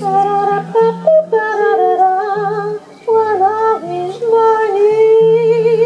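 A woman singing a slow, wordless melody with strong vibrato over acoustic guitar, the guitar holding low bass notes beneath her.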